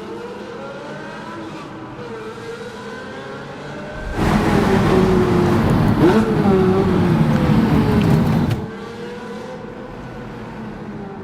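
Pagani Zonda C12 S's Mercedes-AMG V12 engine and exhaust, its revs rising and falling. About four seconds in it becomes much louder as the car accelerates hard and passes close by, its pitch climbing and then falling away, before it drops back to the earlier level near the end.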